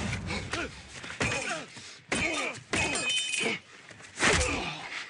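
Sounds of a hand-to-hand fight: strained grunts and groans between thuds and breaking, with a loud crash about four seconds in.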